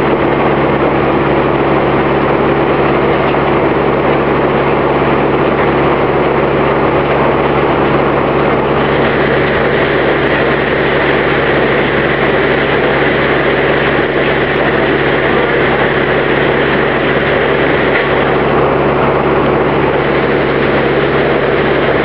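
An early-20th-century Oxford Foundry & Machine Co. circular sawmill and its power unit running steadily, with a deep hum under a loud machine din. The saw spins free while the log is turned on the carriage between cuts. A higher ringing tone joins for several seconds in the middle.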